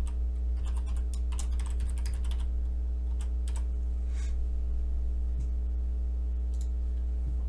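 Typing on a computer keyboard: a quick run of keystrokes over the first couple of seconds, then a few scattered clicks, over a steady low electrical hum.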